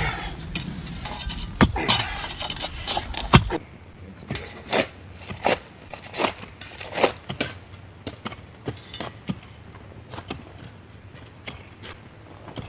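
A digging tool striking and scraping into hard-crusted soil while a drain trench is dug: short sharp strikes, a little under one a second for most of the stretch, after a few scattered scrapes and knocks at the start.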